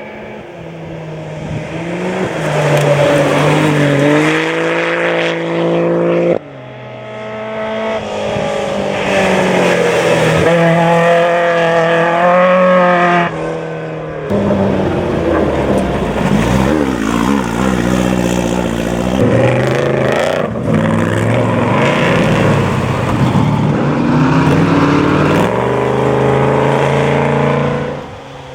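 Off-road desert race vehicles speeding past one after another, their engines revving and the pitch rising and falling with each pass. The sound breaks off suddenly twice, about six and fourteen seconds in, between passes.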